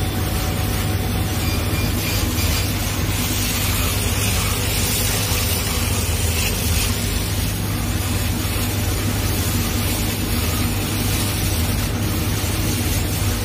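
Dual-head CO2 laser cutter running while it cuts mirror-gold acrylic sheet: a steady, loud machine hum with a constant hiss over it, from the cutter's fans and air supply.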